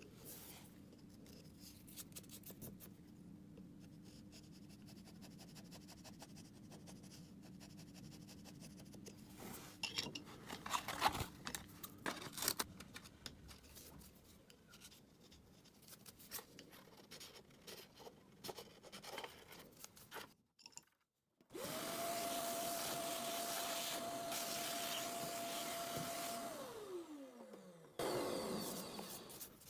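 Hand sanding and scraping of cured body filler on a wooden door casing, in irregular rubbing strokes over a low hum. After a short break, a small electric motor runs steadily for about five seconds, then winds down with a falling pitch.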